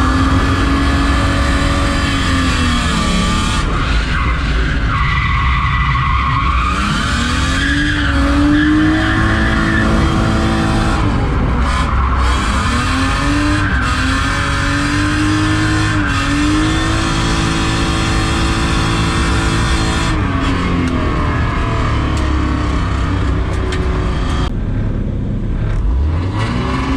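BMW E36 323i's straight-six engine revving up and down over and over during a drift run, its pitch rising and falling in long sweeps, with tyres skidding under heavy low rumble.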